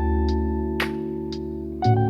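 Background music: guitar notes over a steady bass, with a few light percussive hits.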